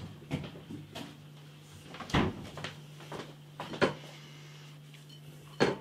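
A series of sharp knocks and clatters from things being handled, about seven in all, the loudest just after two seconds in and another near the end, over a steady low hum.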